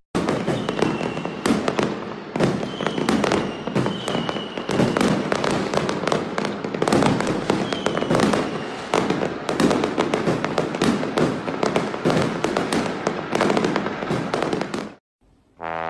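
Fireworks going off in a dense, continuous barrage of bangs and crackles that cuts off suddenly near the end.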